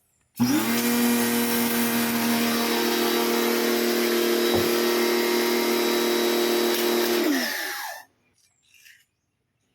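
Kawasaki electric pressure washer switched on, its motor and pump running with a steady hum, then switched off about seven and a half seconds in and winding down in falling pitch.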